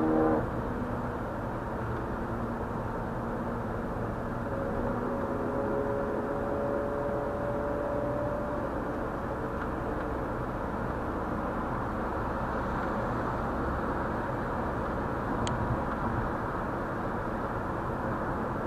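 Steady road and tyre noise of a car cruising at highway speed, heard from inside the cabin, dull and mostly low in pitch.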